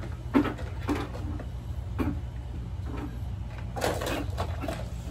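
Plastic toy cookware and utensils knocking and clattering in irregular short knocks as a child handles them on a toy kitchen set, the sharpest knock about half a second in. A steady low hum runs underneath.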